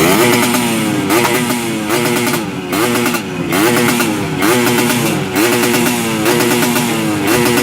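Yamaha RX-King's two-stroke single-cylinder engine, fitted with an aftermarket racing exhaust, blipped over and over, its pitch jumping up and falling back about once a second.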